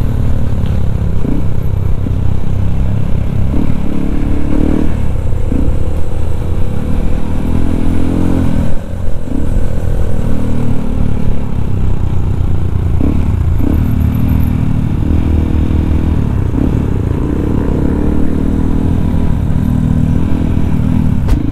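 Yamaha WR155R's single-cylinder engine running under way, its pitch rising and falling again and again with the throttle.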